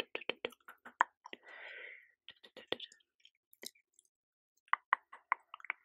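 Mouth sounds: rapid runs of tongue and lip clicks, with a short breathy sound about a second and a half in and another quick run of clicks near the end.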